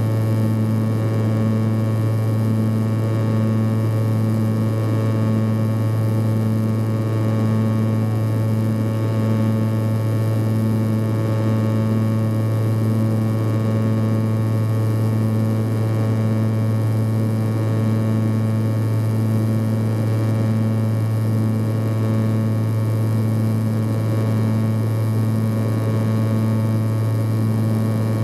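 Antonov An-140 twin-turboprop engines and propellers heard inside the passenger cabin: a steady low propeller drone with a throbbing beat about once a second over a steady rush of engine and airflow noise.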